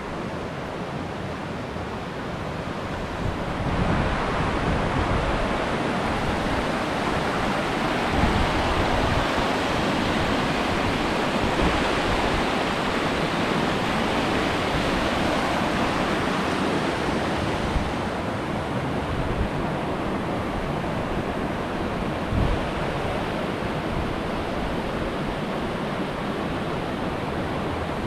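Steady rushing of a fast-flowing river, growing louder about four seconds in and easing a little after about eighteen seconds.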